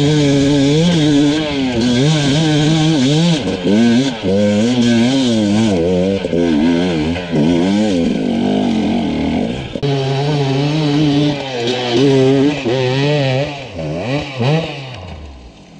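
Enduro dirt bike engine under load on a steep off-road climb. Its pitch rises and falls quickly over and over as the throttle is worked, and it fades near the end.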